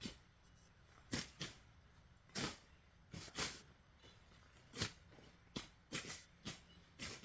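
Machete cutting tall grass and weeds: about a dozen short, sharp strokes at an uneven pace, half a second to a second and a half apart.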